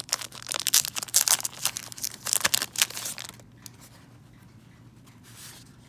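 Clear plastic wrap crinkling and tearing as it is peeled off a stack of trading cards, a busy crackle for about three seconds, then only faint handling.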